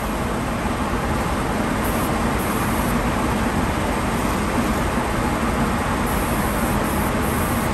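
Compressed-air spray gun hissing steadily as it sprays Cerakote coating onto a hanging rifle part, with a faint low hum underneath.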